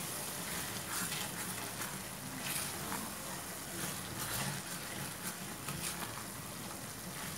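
Chicken curry sizzling in a stainless steel pan on a gas flame while a wooden spatula stirs it, with occasional faint scrapes of the spatula against the pan.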